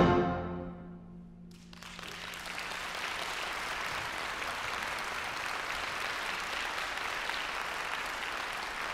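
A wind band's final chord cutting off and dying away in the hall's reverberation, a low note lingering briefly, then audience applause breaking out about a second and a half in and continuing steadily.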